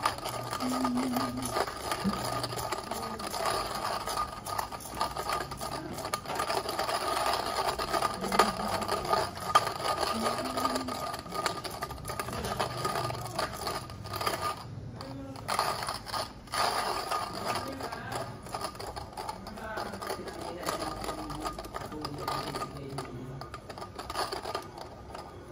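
Hand coffee grinder being cranked, its burrs crunching through beans in a fast, steady stream of clicks and rattles. The grinding breaks off briefly a little past halfway.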